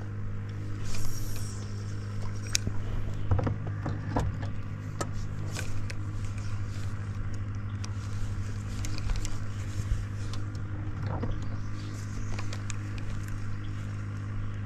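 Steady low hum of a small motor running without change, with a few light clicks and knocks over it.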